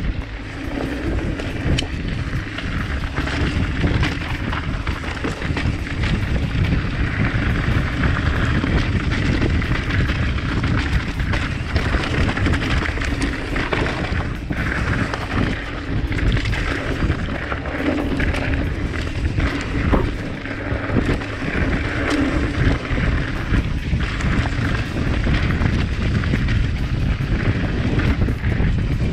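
Mountain bike descending rocky singletrack at speed: wind buffeting the chest-mounted camera's microphone over the tyres crunching and the bike rattling with many small knocks.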